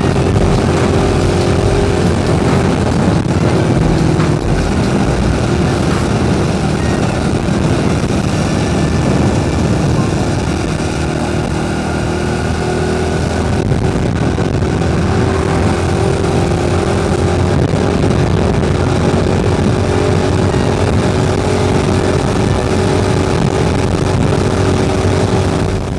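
Chinese replica Honda Monkey's small single-cylinder four-stroke engine running under way at a fairly steady cruising speed, with heavy wind and road rush over it. The engine eases off slightly about halfway, then picks up again.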